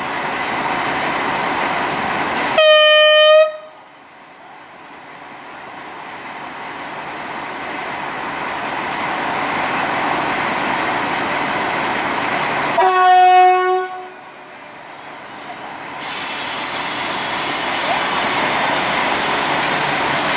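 Diesel railcar sounding its horn twice, about ten seconds apart: first a short higher note, then a short lower one. Between the blasts its engine runs steadily and grows slowly louder as it draws near.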